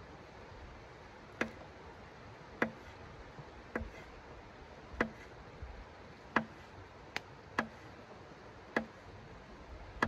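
A series of sharp, short clicks, about one every second or so, as a small knife blade is worked against something held in the hands over a hard tabletop.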